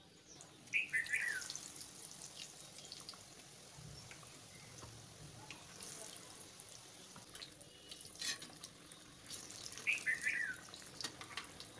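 Batter-coated potato vadas deep-frying in hot oil: a steady sizzle with scattered crackles. A bird chirps briefly twice, about a second in and near the end.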